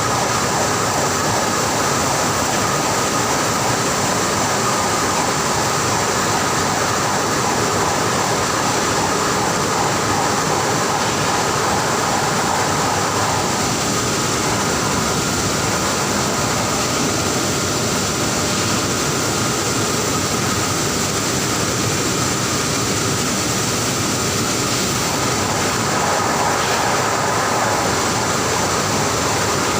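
Loud, steady industrial machinery noise: a constant rushing hiss with a few thin, high steady tones in it, unchanging throughout.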